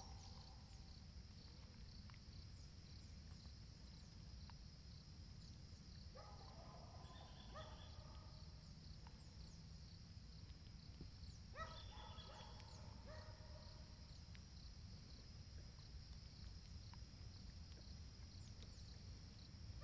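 Quiet open-air ambience with a faint, steady insect trill ticking evenly in the background. Two short animal calls come in, about six and twelve seconds in.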